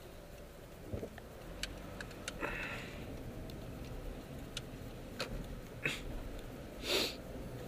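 Inside a Honda CR-V while driving: a steady low road and engine rumble with scattered light clicks and ticks. A breathy puff comes about two and a half seconds in and a louder sniff near the end.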